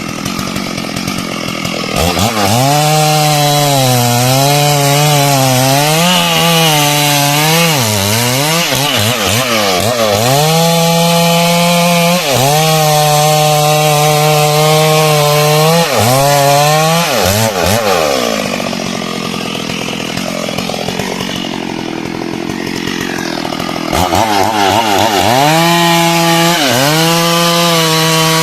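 Petrol chainsaw running at high revs while cutting wood, its pitch repeatedly dipping under load and recovering. Midway it drops to a lower, quieter speed for several seconds, then revs back up near the end.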